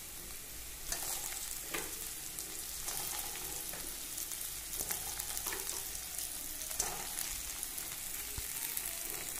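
Masala and fish pieces sizzling in oil in a steel kadai, a steady hiss, with a metal spatula scraping and knocking against the pan several times as the food is stirred.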